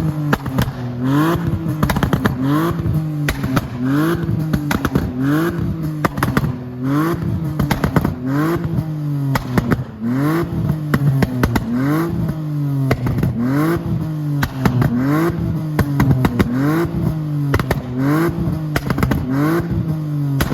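BMW E46 325i's 2.5-litre straight-six being blipped again and again, about every second and a half, each rev followed by a burst of pops and crackles from the exhaust as the revs fall. The crackles come from a custom remap made to fire pops and bangs on the overrun.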